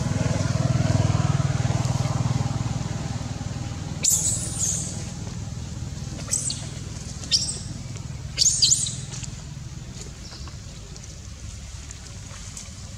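A motor vehicle passes with a low engine rumble that swells and then fades over the first few seconds. Then come several short, high-pitched squeals, a few in quick succession a little past the middle.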